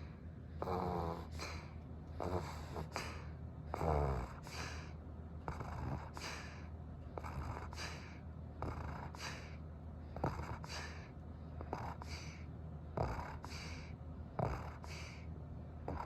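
Senior Shiba Inu snoring loudly in its sleep: a snore with each breath, in and out, repeating about every second and a half. Some breaths rattle harder, the loudest about four seconds in.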